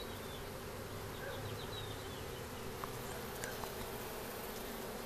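Honey bees from a swarm humming steadily as a mass of bees crawls over and around freshly built wax comb.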